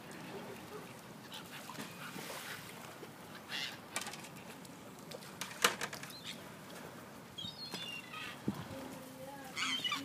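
Gulls squawking in short calls a few times, about a third of the way in, again late and once more near the end, over a faint low hum. A sharp click about halfway through is the loudest sound.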